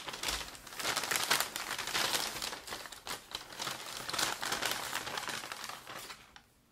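Brown paper takeout bags crinkling and rustling as two people unroll them and open the tops, a dense crackle that stops near the end.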